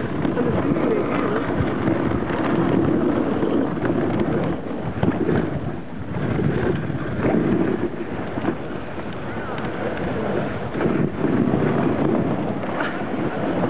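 Dog sled moving over packed snow: the runners hiss and scrape steadily, with frequent short knocks and rattles from the sled and wind buffeting the microphone.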